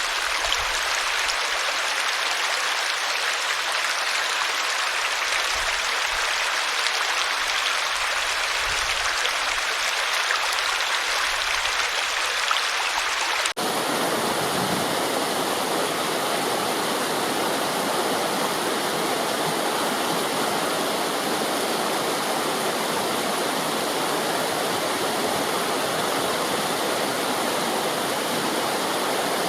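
Running water, a steady rushing hiss. About halfway through it switches abruptly to a different, fuller and deeper water sound, as if two recordings were joined.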